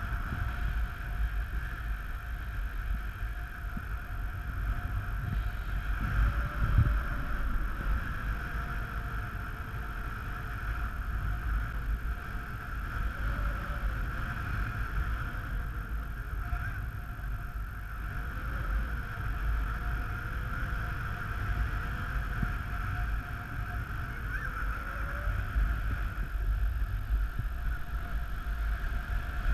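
Wind rushing and buffeting over the camera's microphone in flight under a paraglider, a low rumble with a steady whistle-like tone above it; a stronger gust about seven seconds in.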